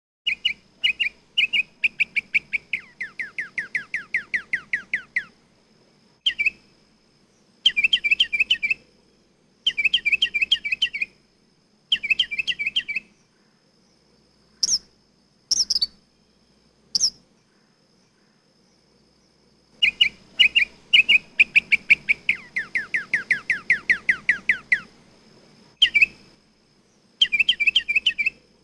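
Northern mockingbird singing: short phrases of quick notes, each phrase repeated a few times, with runs of falling slurred notes and a few sharp rising whistles. After a pause of about two seconds the song starts over.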